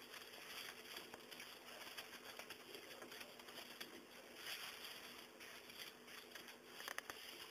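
Faint rustling and scratching in straw bedding as small puppies tussle, with a single sharp click about seven seconds in.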